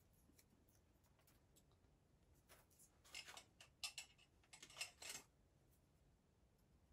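Near silence, then a few seconds of faint clicks and rustles from bonsai wire and leaves being handled as branches are wired.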